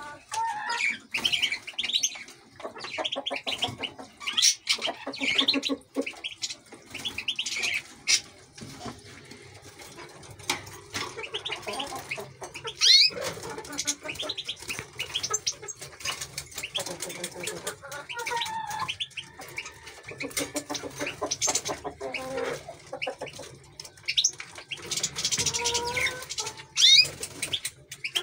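Caged canaries chirping and calling in quick, high trills, with wing flutters now and then.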